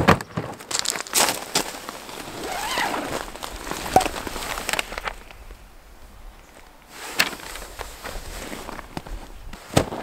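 Camping gear being handled on crushed-stone gravel: scattered knocks and clicks, with crunching and rustling of fabric and paper. There is a quieter stretch a little past the middle.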